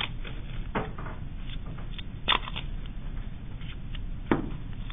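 A roll of masking tape being handled, a strip pulled off and torn: a few short, sharp clicks and rips, the loudest about two and four seconds in, over a steady low hum.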